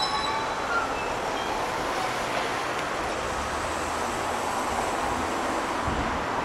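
Hiroden streetcar No. 910 rolling slowly and drawing to a stop, heard as a steady, even rumble of tram and street noise, with a few faint wheel-squeal tones right at the start.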